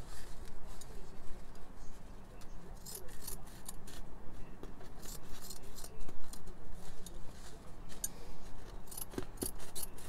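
Scissors snipping through a sheet of fibrous HVAC air-filter material, a run of short irregular snips as the piece is trimmed to shape.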